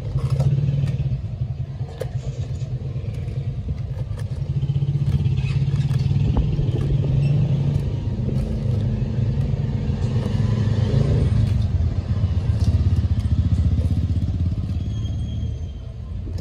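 An engine running with a low rumble that rises and falls in pitch and level, like a motorcycle nearby.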